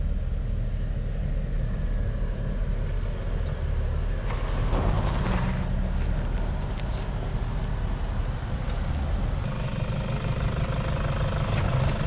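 Engines of 4x4 vehicles running slowly as they crawl down a steep dirt slope, a steady low rumble: a Jeep Wrangler Rubicon, with a Toyota Hilux following. A brief rush of noise comes about five seconds in.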